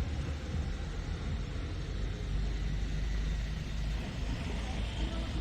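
Seaside wind and surf: a steady low rumble of wind on the microphone over an even hiss of breaking waves.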